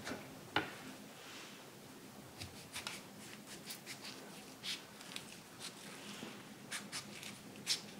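Kitchen knife cutting a ripe avocado in half around its pit, making a scatter of small clicks and scrapes as the blade works through the bumpy skin and against the stone. A sharper knock about half a second in as the avocado is handled.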